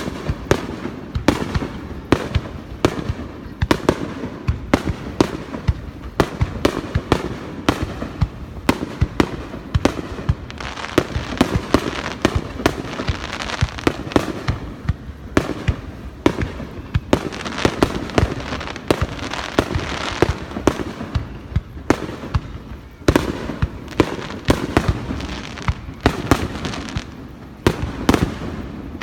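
Aerial fireworks bursting in a dense, nonstop barrage, many bangs a second overlapping, with crackling between them: the closing barrage of a fireworks display.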